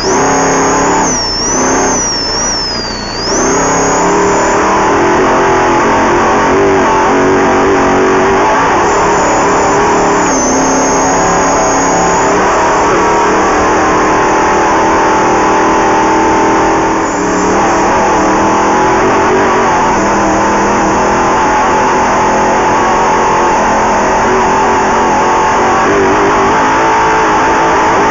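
Off-road race vehicle's engine running hard at speed, heard from inside the vehicle. The revs dip and climb a few times over the first four seconds, then hold high and nearly steady, with a thin high whine rising and falling early on.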